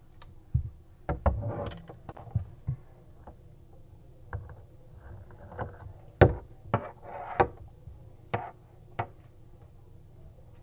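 Irregular clicks, knocks and short scrapes of small metal and plastic faucet parts being handled and fitted by hand, with the sharpest knock a little past six seconds in.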